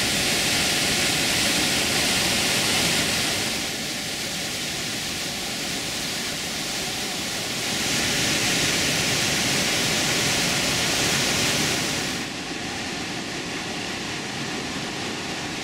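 Steady rushing of the Iguazú Falls waterfalls. It is louder for the first three seconds and again from about eight to twelve seconds in, and softer in between and over the last few seconds.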